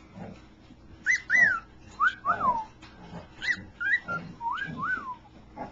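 A pet cockatiel and a person trading whistles. There are four pairs of rising-and-falling two-note whistles, each pair about half a second long, and the pairs alternate between a higher and a lower pitch.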